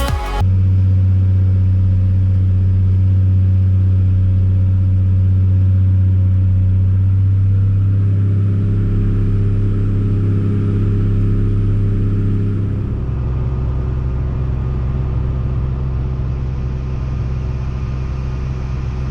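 Diesel engine of heavy farm machinery running steadily under load, a deep drone that shifts to a different pitch about thirteen seconds in.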